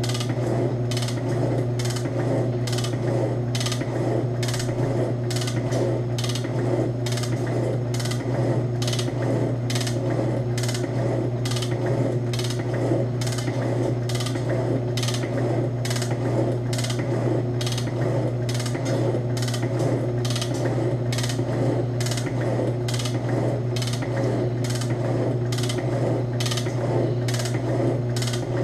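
Ammco 7-inch metal shaper running, its ram stroking back and forth with an even clack a bit over twice a second over a steady motor hum, as the tool takes cutting passes.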